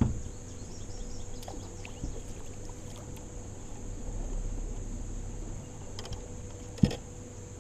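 A bass being fought and landed from an aluminum boat: a thump as the hook is set, light clicks and small splashes, then one sharp loud knock on the boat near the end as the fish comes aboard. A steady high insect drone runs underneath.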